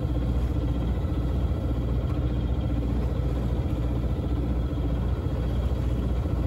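Sailboat's engine running at a steady speed while motoring, a low, even hum that stays unchanged.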